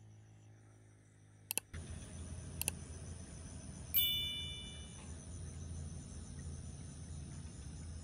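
Steady high-pitched insect buzzing with a low rumble that comes in about two seconds in. Two sharp clicks about a second apart occur near the start, and a single bright chime sounds about four seconds in and rings out for about a second.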